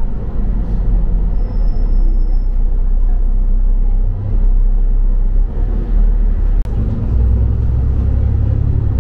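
London double-decker bus in motion, heard from on board: a steady low engine and road rumble that grows louder near the end.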